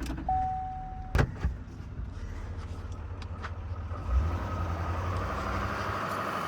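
A short steady beep, then a vehicle door shutting with a sharp knock about a second in and a few lighter clicks, followed by a vehicle engine running and building up near the end.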